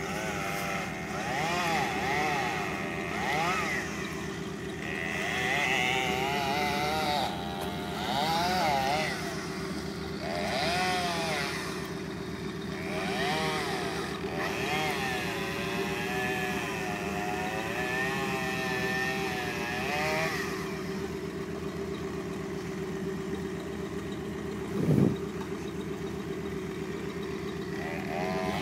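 Chainsaw running and revving, its pitch rising and falling, over a steady lower engine drone. About two-thirds of the way through the revving stops and only the drone goes on, with a single sharp thump near the end.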